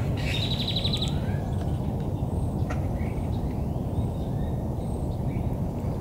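Black birds calling: a fast trill and a rising whistle near the start, then scattered short chirps and clicks, over a steady low rumble of background noise.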